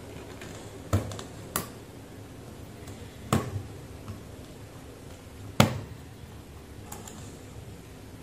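Sharp clicks and taps of multimeter probe tips and fingers on a small plastic potentiometer body as it is handled and probed, about five irregular clicks, the loudest about five and a half seconds in, over a low steady hum.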